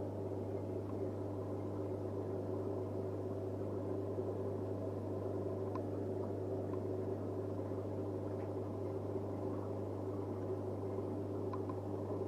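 Steady low hum of an aquarium pump with the rushing of circulating water, and a few faint ticks.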